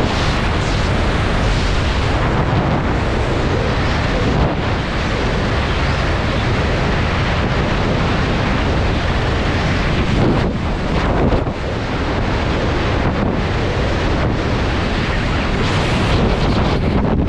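Loud, steady rush of freefall wind buffeting the microphone during a tandem skydive.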